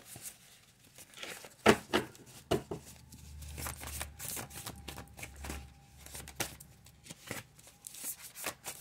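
A deck of divination cards handled close to the microphone: card stock rustling and flicking, with scattered sharp taps, the loudest about two seconds in.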